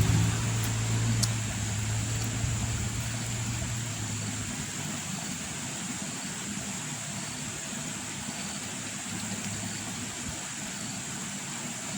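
A motor engine hums low and steady, then fades out about four and a half seconds in, leaving a steady rushing hiss.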